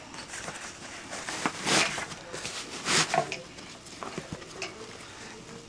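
Kifaru pack bag's fabric and webbing rustling and scraping under the hands as straps and buckles are worked, with two louder swishes about two and three seconds in and a few small clicks.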